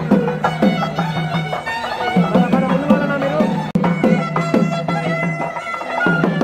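Traditional Indian music: a reed wind instrument playing over a steady drone, with repeated drum strokes.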